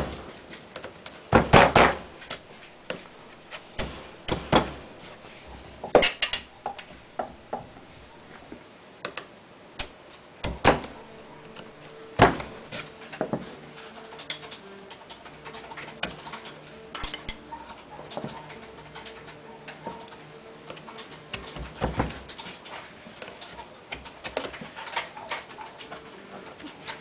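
Wood-carving gouge cutting into a wooden board by hand: sharp knocks and taps of the tool against the wood at irregular intervals, a few seconds apart, with smaller taps between.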